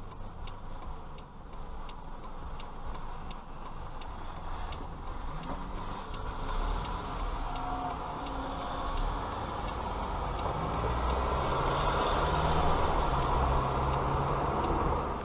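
Car driving noise heard from inside the cabin: a steady low engine and road rumble with faint regular ticking, growing louder from about halfway through as the car picks up speed.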